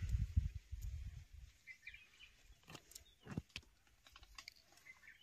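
Rustling and brushing of leaves and twigs against the handheld phone, with a low rumble on the microphone in the first second and a half and a few sharp clicks after that. Faint bird chirps come in briefly.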